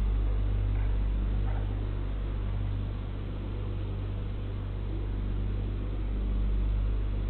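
Steady low hum with an even hiss over it, the background noise of a doorbell camera's microphone with nobody speaking.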